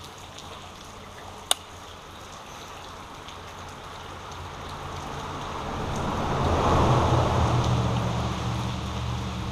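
A vehicle crossing the road bridge overhead: its rumble swells, peaks about two-thirds of the way through, then eases off, over a steady hiss of rain and creek water. A single sharp click comes about a second and a half in.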